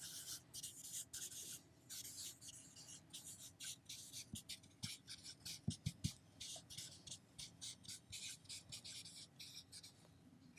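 Dry-erase marker writing on a whiteboard: a faint, rapid, irregular run of short scratchy strokes, with a few light taps about halfway through.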